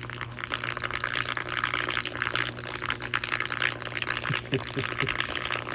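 Live circuit board of a TV converter box submerged in salt water, fizzing and crackling steadily as current runs through the water and heats it to steaming. A steady low hum runs underneath.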